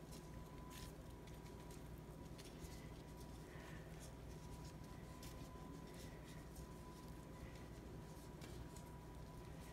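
Faint rustling and small scattered clicks of plastic-gloved hands laying green pepper strips into a glass baking dish. Underneath runs a steady low hum with a thin steady tone.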